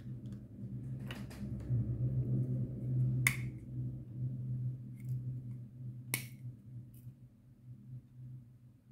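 Three sharp clicks and a few fainter ticks from small packets of diamond-painting drills being handled and set down, over a steady low hum.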